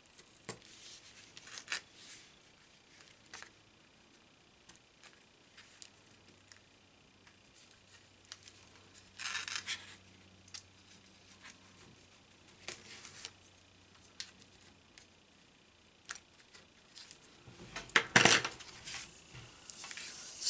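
Small craft scissors snipping at washi tape on paper: scattered light clicks and snips with brief rustles of paper and tape being handled. A louder knock near the end.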